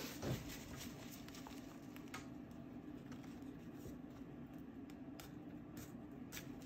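Faint scratching and light ticks of an art tool working on sketchbook paper, over a steady low room hum.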